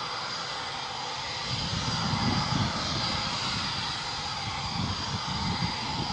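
Eurofighter jet engines running at low power, a steady whine with hiss, under an uneven low rumble that swells about two seconds in.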